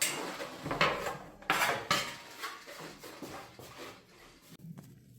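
Metal tools or parts clinking and scraping against each other in a handful of quick knocks, the loudest in the first two seconds, then lighter rattles.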